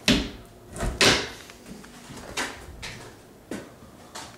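Knocks and scrapes on a door or its surround: two loud, sharp ones in the first second or so, then several fainter ones.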